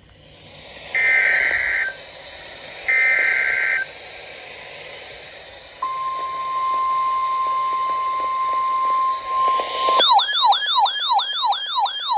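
Weather-radio broadcast over a receiver with steady hiss: two short bursts of the SAME digital alert header (a harsh two-tone warble), then a steady single-pitch warning alarm tone starting about six seconds in. Near the end a loud siren-like tone cuts in, sweeping downward about twice a second.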